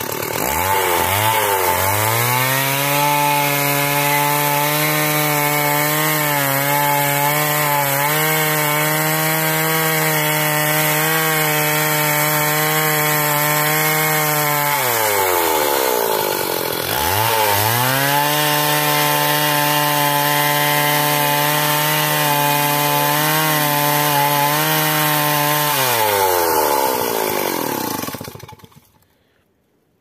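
Stihl chainsaw revving up and held at full throttle, cutting into a tree trunk with a steady engine note. About halfway through it drops off briefly, then revs up again for a second long cut. Near the end it winds down and shuts off.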